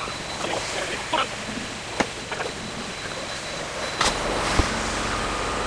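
A few clicks and knocks, then about four seconds in a motor starts with a short burst and runs on as a steady low hum with a faint whine, one knock following soon after.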